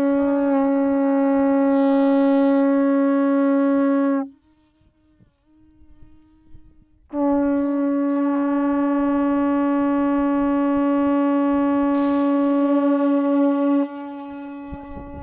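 A horn blown in long, steady blasts on one low note. The first blast ends about four seconds in. After a short lull a second blast of about seven seconds follows, then drops away near the end, leaving a fainter horn note.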